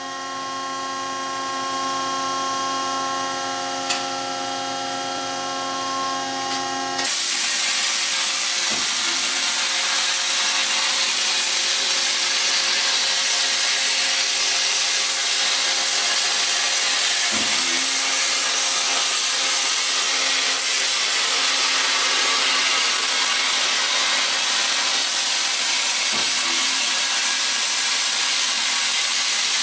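Xilix Spectrum waterjet cake cutter. For about seven seconds a steady machine whine of several tones, then the high-pressure water jet starts suddenly with a loud, steady high-pitched hiss that runs on as it cuts through the layered sheet cake.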